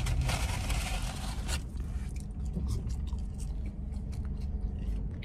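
Low steady rumble inside a car, with a scraping rustle over the first second and a half and a few faint clicks after it.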